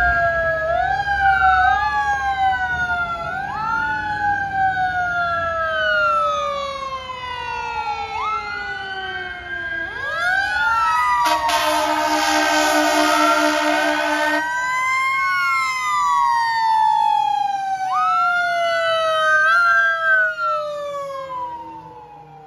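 Fire engine siren on an emergency run, winding up quickly and falling slowly in repeated wails. From about 11 to 14.5 seconds in, a long steady horn blast sounds over the siren. The siren fades near the end as the engine drives away.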